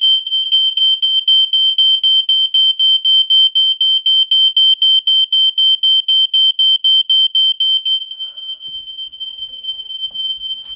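Smoke alarm sounding a loud, high-pitched tone that pulses rapidly, about four or five times a second, and gets quieter about eight seconds in. It is a false alarm set off by a power outage, not by a fire.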